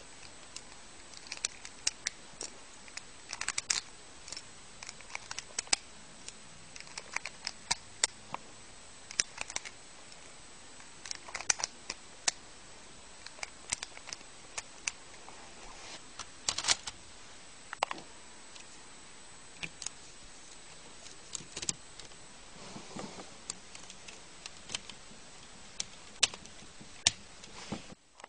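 Hard plastic Lego bricks clicking and clattering as red bricks are pushed one at a time into a Lego magazine: many short, irregular clicks over a steady background hiss.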